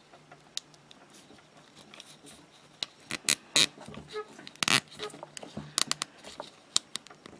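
Nylon zip tie being threaded and pulled tight around plastic split-loom tubing: scattered sharp clicks from the tie's ratchet and handling, starting about three seconds in, with light rustling of the corrugated plastic.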